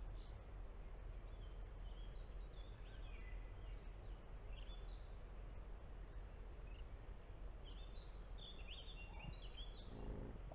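Small songbirds singing in short, high chirping phrases over a steady low background noise, the song busiest a little before the end. Near the end a lower-pitched call begins.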